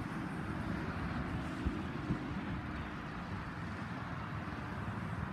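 A distant engine running steadily under a low outdoor rumble.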